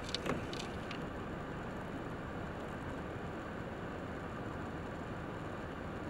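Steady hiss of traffic on a wet, slushy road, with a few short sharp scrapes in the first second.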